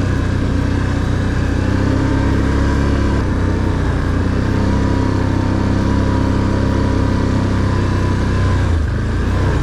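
Can-Am ATV engine running at a steady pace on the trail, easing off briefly near the end.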